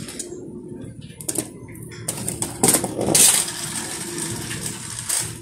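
Small toy cars rolling down a board ramp and across rough concrete, a clattering, rattling roll with a few sharp clicks, loudest from about two to three and a half seconds in.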